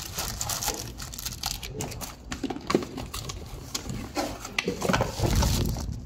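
Plastic packaging bags crinkling and cardboard boxes and inserts being handled during unpacking: a dense run of crackles and small knocks, with heavier handling noise near the end.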